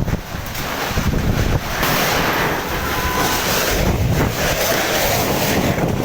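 Strong gusting wind buffeting the microphone, a loud rushing noise with low rumbling gusts that builds about two seconds in.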